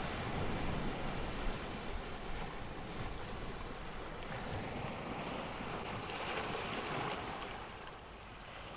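Sea surf washing in over rocks and a pebble beach: a steady rush of water that swells about six seconds in and eases off near the end, with a low rumble of wind on the microphone.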